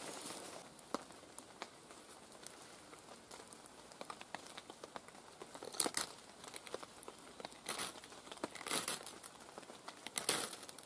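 Small Light My Fire ferro rod scraped with its little striker onto dry feather sticks: four short scraping strokes in the second half, each throwing sparks to light the tinder. Before them, faint crinkling as the dry wood shavings are handled.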